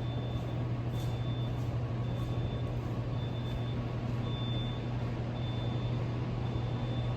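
A steady low mechanical hum, with a faint high-pitched beep repeating about once a second over it: the ambience of a subway station.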